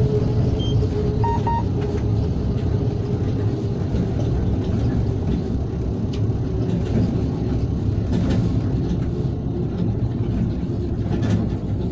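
Steady cab noise of a class 163 electric locomotive under way: a continuous low rumble of the running gear and wheels on the rails. Two short electronic beeps about a second in.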